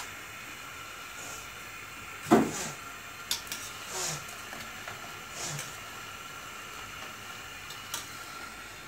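Luqaimat dough balls deep-frying in a pot of hot oil: a steady sizzling hiss, with a few sharp clicks and knocks of a metal wire skimmer against the pot. The loudest event, about two seconds in, is a short sound that falls quickly in pitch.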